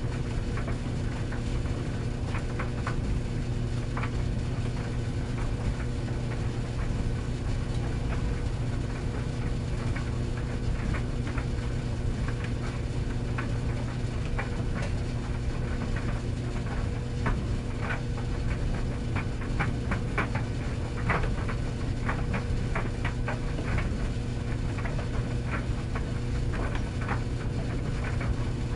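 Tumble dryer running: a steady motor hum and drum rumble, with light, irregular clicks and taps from the tumbling load that come more often in the second half.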